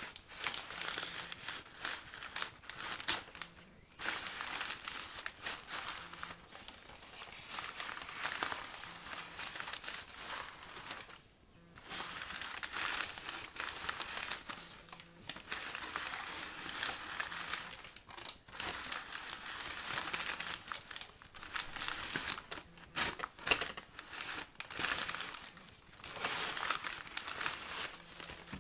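Brown paper grocery bags rustling and crinkling as they are handled and slid against each other, in irregular bursts with short pauses, the longest about eleven seconds in.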